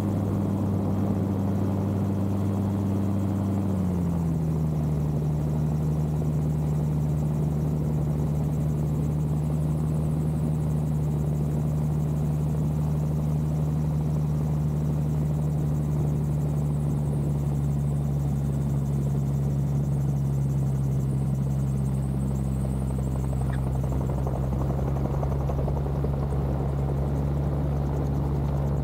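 Turbocharged Rotax 915iS four-cylinder engine and pusher propeller of an AutoGyro MTOsport gyroplane running steadily in flight, close up from a camera on the wheel pant, with wind rush. About four seconds in, the engine note drops to a lower pitch and stays there as power comes back for the landing approach.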